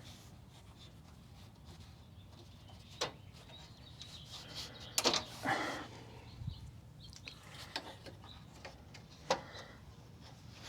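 A few sharp clicks and knocks from hands working loose a car's front grille hardware (screws, clips and plastic grille), with a short scraping, clattering cluster about five seconds in, over a low steady hum.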